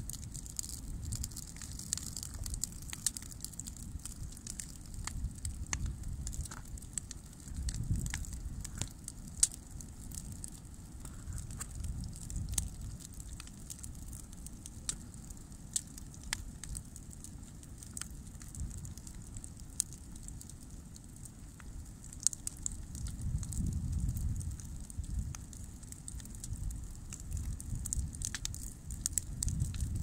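Bonfire of dry branches burning, crackling with frequent sharp pops over a low rumble that swells a few times.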